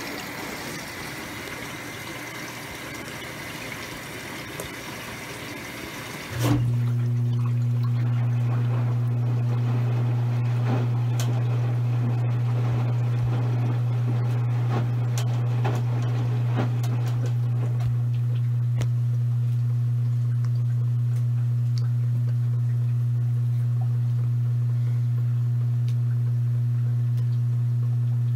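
Maytag washing machine in its rinse cycle: water running for about six seconds, then it stops and a loud, steady low hum starts suddenly and holds.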